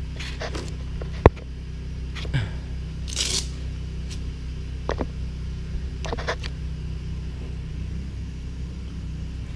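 Tremec T56 Magnum XL transmission being worked out from under the car on a towel across the concrete floor: a sharp knock about a second in, a brief scraping rustle, then a few lighter clunks, over a steady low hum.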